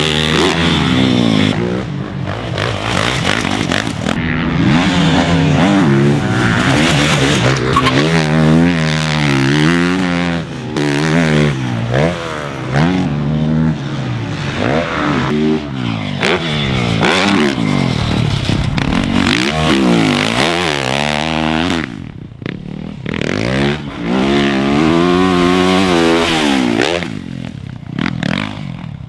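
Four-stroke motocross bike engines revving hard and backing off again and again as they ride a dirt track. The pitch climbs and drops with each burst of throttle and gear change, dipping briefly twice near the end.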